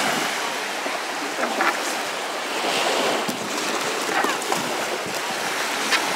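Small waves breaking and washing up the sand at the shoreline: a steady rush of surf.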